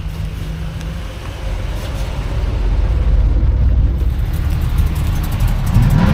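Engine of a classic car or hot rod rumbling deeply as it pulls away at low speed, growing louder, with the revs rising near the end.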